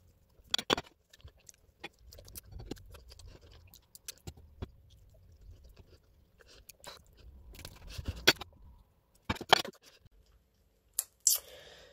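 A person chewing pizza close to the microphone, with soft mouth noises and scattered short clicks; a few sharper clicks stand out about eight and nine and a half seconds in.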